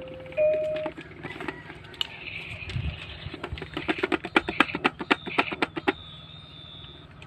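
Electronic baby activity toy giving a couple of short beeps, then a quick run of sharp clicks and taps, about five a second, as its buttons are pressed, ending in a thin high electronic tone.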